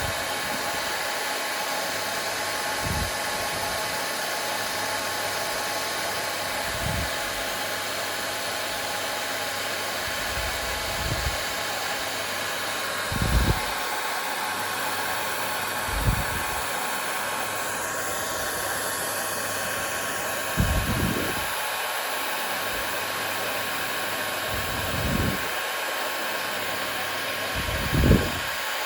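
Hair dryer running steadily: an even rushing noise with a faint constant hum. Short low thumps come every few seconds, the loudest near the end.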